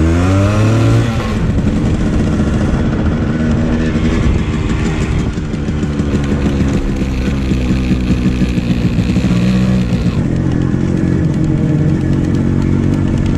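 Yamaha RX100's two-stroke single-cylinder engine running while the motorcycle is ridden: it revs up in the first second, then runs at a fairly steady pace.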